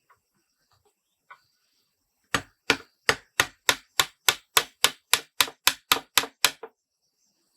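About fifteen quick, even blows of a hand tool, some three a second, starting about two seconds in and stopping near the end.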